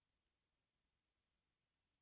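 Near silence: no audible sound, only a faint noise floor.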